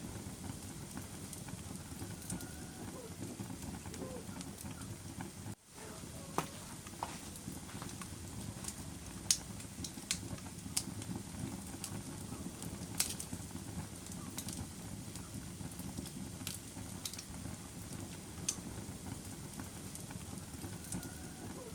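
Wood fire in a fireplace burning with a steady low rush and scattered sharp crackles and pops, several seconds apart. The sound briefly drops out about a quarter of the way in.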